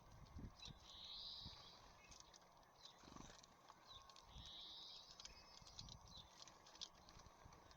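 Small songbirds at a feeder: scattered quick taps and clicks of pecking and landing, with soft low thumps, and a short buzzy call twice, about three and a half seconds apart.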